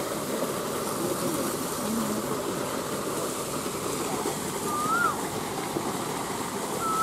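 Water gushing steadily from a pipe outlet into a ditch, a constant rushing. A short rising-and-falling whistle comes twice, once about five seconds in and once at the end.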